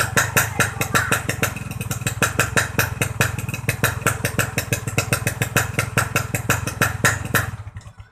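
Yamaha RX-King two-stroke single idling through a Boban C-33 aftermarket exhaust, a rapid, even popping beat. The sound dies away near the end.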